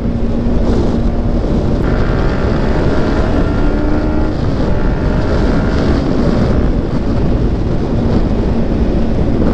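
Sport motorcycle riding at highway speed, its engine note slowly rising as it pulls, under heavy wind rush on the rider's microphone.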